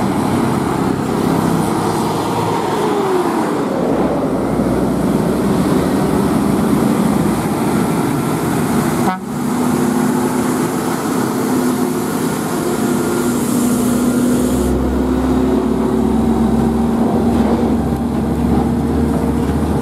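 Mercedes-Benz Actros heavy-haul tractor trucks pulling loaded lowbed trailers past at close range, diesel engines running over tyre and road noise. In the second half a truck horn sounds in long, steady tones.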